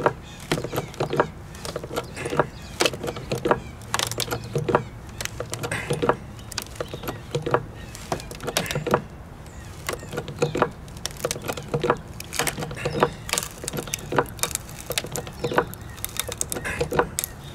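Hydraulic bottle jack being pumped by hand under a heavy load, with many sharp, irregular clicks and cracks as the wooden post and timbers under the jack creak and begin to split under the pressure.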